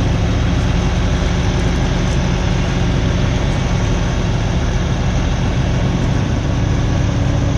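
Heavy truck's diesel engine idling steadily, with a constant low hum.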